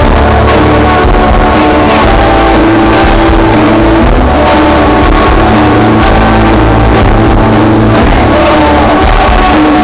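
Argentine rock band playing live and loud through a concert PA, heard from the audience, with sustained notes over a heavy bass.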